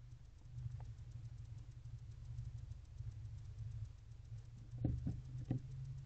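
A barn owl shifting inside a wooden nest box: a few short, soft taps and scrapes about five seconds in, over a steady low hum.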